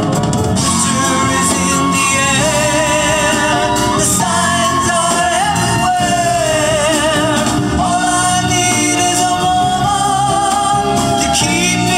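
A vinyl 45 rpm single playing a song: a voice singing with a wavering vibrato over full instrumental backing.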